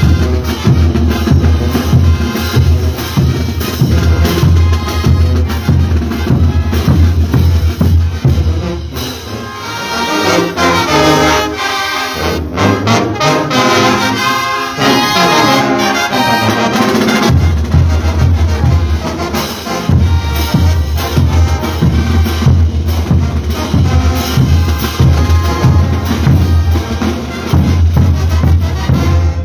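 Bolivian brass band playing a morenada: massed trumpets, trombones and other brass over a steady beat of bass drums and cymbals. The bass drums drop out for several seconds about a third of the way in, leaving the brass alone, then come back in.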